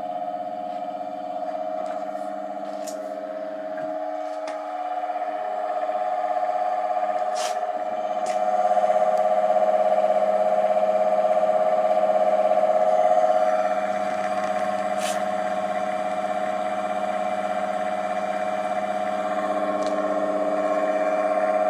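Rebuilt ATB three-phase induction motor, fitted with new bearings and run on single phase through a 30 microfarad capacitor, running steadily with a hum and a strong steady whine. A few light clicks come and go over it.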